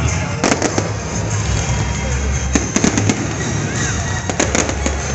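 Fireworks display: bursting shells give repeated sharp bangs and crackles at irregular intervals over a steady low rumble, with music in the background.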